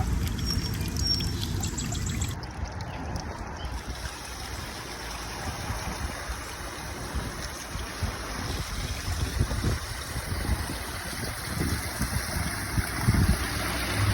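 Backyard waterfall running steadily, fed by a 3,000-gallon-per-hour pump, its water splashing down into the pond.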